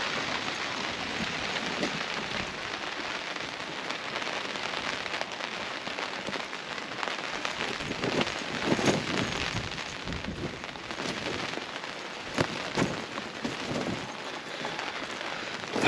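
Steady rain falling on the camp, a dense even hiss, with a few louder drop hits past the middle.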